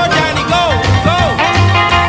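Background music: an upbeat song with a steady, pulsing bass line and a lead part that slides up and down in pitch.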